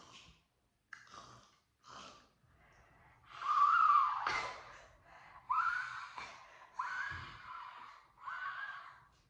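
A person gagging and groaning in disgust at the taste of chewed dog food: two short noises, then four longer, louder drawn-out retching cries, the first of them the loudest.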